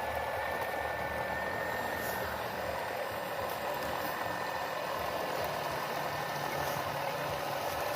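Steady mechanical running noise with a continuous high whine over a low hum, typical of a small motor running without change.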